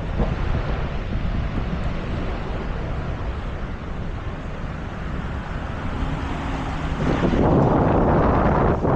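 Wind buffeting the microphone over a steady rushing noise, which grows louder about seven seconds in.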